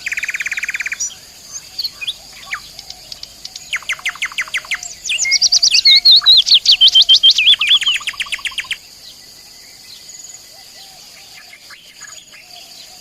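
Nightingale singing: a fast buzzy rattle at the start, then runs of rapidly repeated whistled notes, loudest between about four and nine seconds in. After that the song stops and only faint scattered chirps remain.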